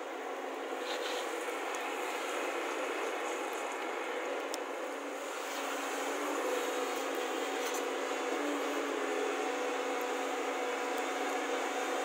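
Diesel engine of a JCB tracked excavator running steadily as it digs, getting a little louder about halfway through.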